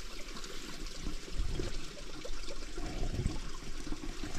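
Small forest brook trickling steadily, with a few soft low thumps.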